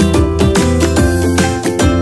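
Instrumental background music with plucked notes and a steady beat.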